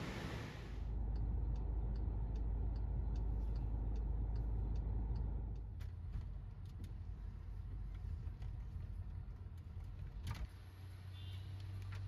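A car's low rumble with faint, regularly spaced ticks, dropping away after about six seconds. A sharp click follows near the end, then a steady low hum.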